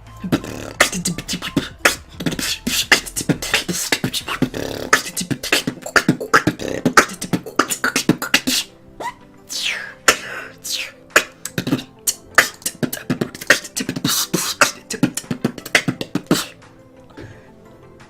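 Human beatboxing: a fast, dense run of vocal kick, snare and hi-hat sounds with a few sliding pitched sounds midway. It stops about a second and a half before the end.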